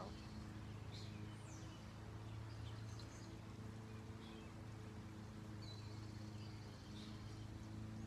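Honeybees humming around an open hive, a steady low drone that swells and fades, with short bird chirps now and then.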